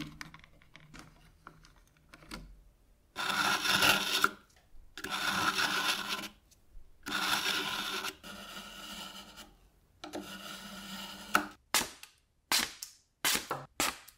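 Antique meat-slicer blade drawn through the coarse slot of a pull-through knife sharpener: about four long scraping strokes of steel against the sharpening slot, sharpening the sanded edge. Faint clicks come first as the sharpener's angle dial is turned, and a quick run of short, sharp sounds follows near the end.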